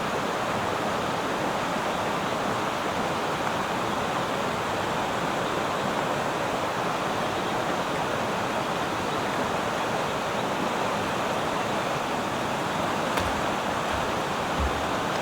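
River water rushing steadily over stones, an even unbroken noise, with a couple of faint knocks near the end.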